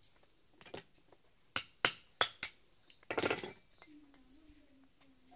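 A 1-inch spring-type foot valve being struck with a tool to break open the lock inside it: four sharp clinks in quick succession, then a short rattle.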